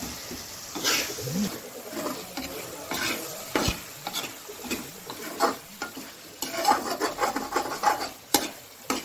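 Spatula stirring and scraping potato chilli fry around a pan while the food sizzles, with irregular scrapes and clicks against the pan. There is a loud knock about a third of the way in and a run of quick scrapes near the end.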